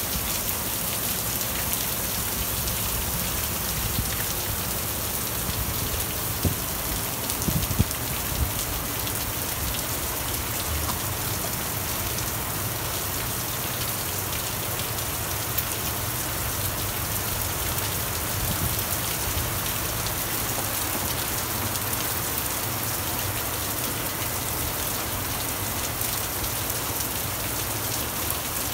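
Thunderstorm rain falling steadily, with a few brief knocks about six to eight seconds in.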